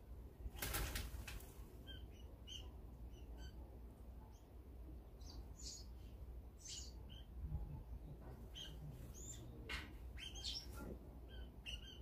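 Small birds chirping in short, scattered calls, with a burst of wing flapping about half a second in and more flutters near the ten-second mark.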